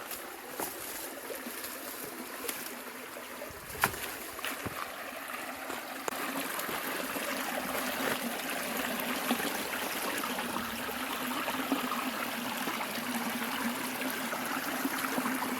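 Stream running over rocks, a steady rushing that grows a little louder about six seconds in, with a sharp snap just before four seconds.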